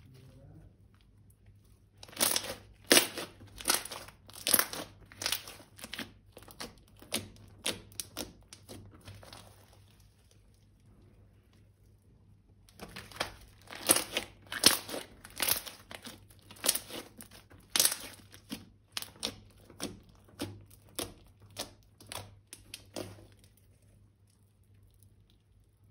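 Slime being squeezed and pressed by hand, crackling and popping. There are two runs of sharp pops, about one or two a second, each starting loud and fading away over several seconds.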